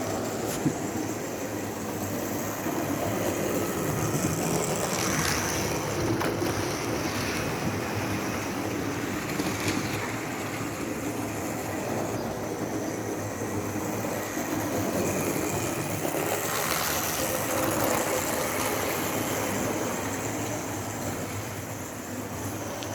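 Model trains running around a layout: electric motors and wheels on the track making a steady running noise, swelling about five seconds in and again around sixteen seconds in as a train passes close.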